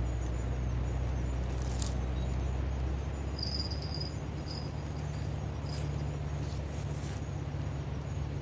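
A steady low engine hum, its pitch rising a little about three and a half seconds in, with a brief high chirp and a few faint clicks over it.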